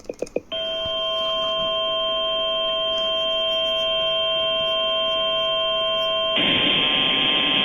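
Emergency alert tone received over NOAA Weather Radio: a steady, unwavering alarm tone that starts about half a second in, after a few short data blips. About six seconds in, a loud hiss of static joins it. The tone announces a new weather warning.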